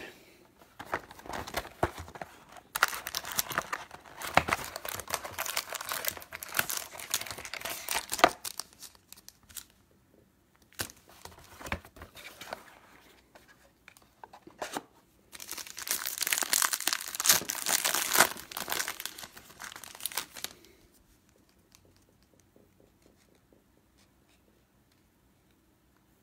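Foil trading-card pack wrapper from a 2018 Panini XR football box being torn open and crinkled. The crinkling and tearing comes in two long bouts, the first starting a couple of seconds in and the second past the middle. The last few seconds are much quieter, with faint clicks of the cards being handled.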